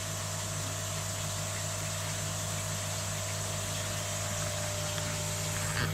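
Koi pond pump running steadily: a constant low hum under an even hiss.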